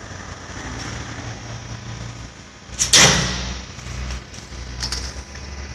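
Roll-forming machine for corrugated metal roof sheets running with a steady low hum. About three seconds in comes one loud bang with a ringing tail, followed by a few lighter clicks.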